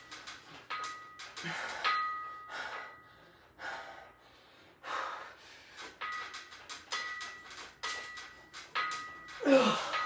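A man breathing hard through a set on a cable machine, with a sharp exhale on each rep. A faint high whine comes and goes with the strokes, and near the end comes a loud grunt that falls in pitch.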